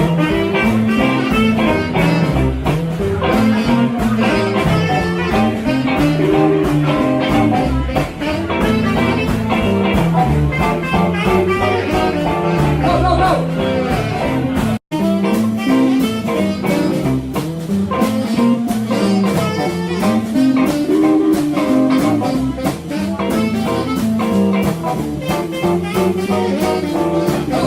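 Blues music with guitar. About halfway through it cuts out for a split second and resumes with much less deep bass.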